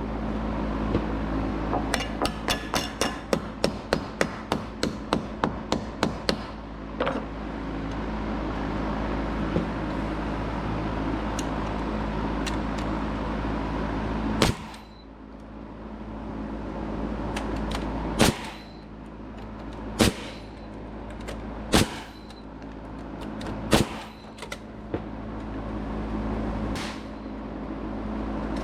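Hammer blows on wood framing: a quick run of about four strikes a second for several seconds, then a steady noise, then single sharp knocks a couple of seconds apart over a constant low hum.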